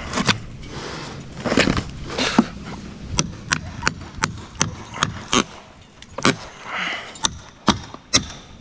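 Steel cat's paw nail puller prying at nails in a rotted wood fascia board: scraping and prying in the first couple of seconds, then a run of sharp metal clicks and taps, about two or three a second.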